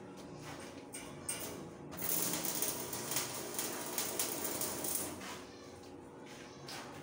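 Electric arc welding on steel: the arc crackles and sputters steadily for about three seconds, striking about two seconds in and stopping about five seconds in.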